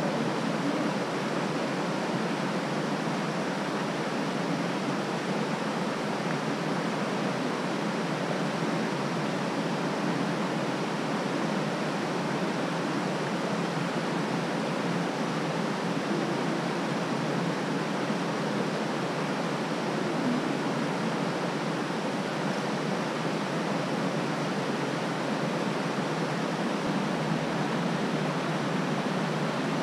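Flowing creek water: a steady, even rushing hiss that does not change.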